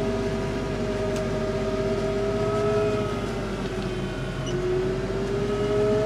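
Kubota tractor with its snowblower running and throwing snow: a steady engine drone with a whine over it. The whine sags a little in pitch about three seconds in and climbs back near the end.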